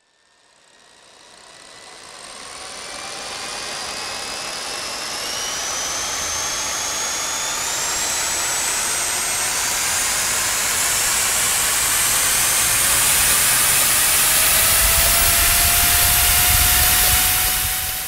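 Jet engine spooling up: a turbine whine rising steadily in pitch over a growing hiss and low rumble. It swells in from silence over the first few seconds, keeps getting louder, and fades out near the end.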